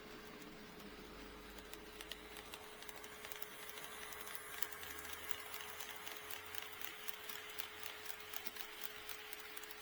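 HO scale model train running on sectional track, its wheels clicking over the rail joints. The clicks start about two seconds in and grow louder and quicker as the train draws near, over a steady hum.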